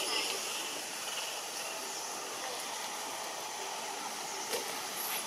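Steady outdoor background hiss with no clear events, and a faint tick about four and a half seconds in.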